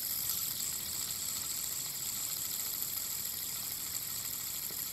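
Fidget spinner spinning right next to the microphone: its ball bearing gives a steady, high-pitched whir.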